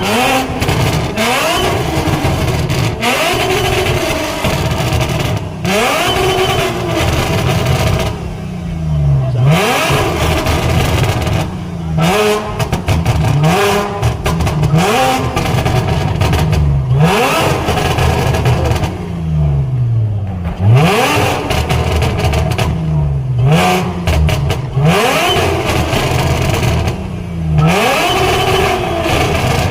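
Audi car engine revved over and over in quick blips, each rev climbing in pitch and dropping back, with sharp crackles between the revs.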